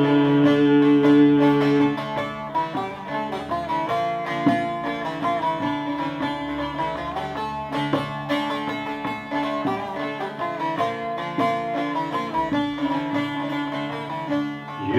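Plucked string instrument playing an instrumental interlude between the sung verses of a Turkish Sufi hymn. A held sung note fades out about two seconds in, and then the picked melody goes on alone.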